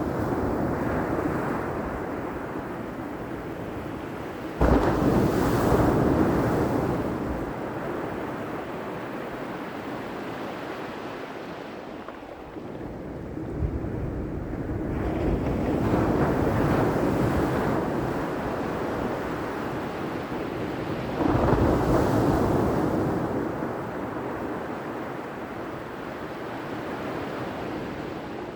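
Ocean waves breaking on a shore, a steady wash that swells and fades in surges. The two loudest waves crash suddenly about five seconds in and about twenty-one seconds in, with a softer swell in between.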